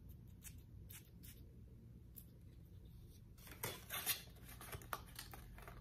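A perfume atomizer sprayed onto a fingertip: a couple of short, faint hissing puffs about three and a half to four seconds in, with faint handling rustles before them.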